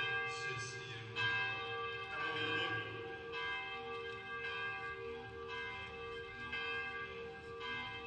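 Bell-like tones in a contemporary ensemble piece: a new stroke every one to two seconds, each ringing on and overlapping the last, over a steady held tone.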